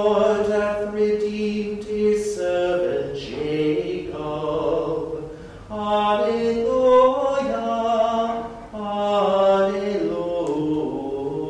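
Unaccompanied liturgical chant sung by a man's voice. Held notes step up and down in pitch, with short breath pauses between phrases.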